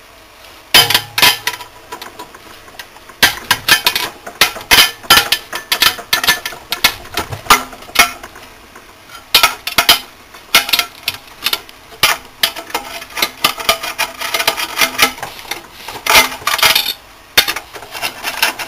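Metal hand tool clinking and knocking against the aluminium finned heat sink of an industrial soft starter as its fasteners are undone: a run of irregular sharp clicks and clanks.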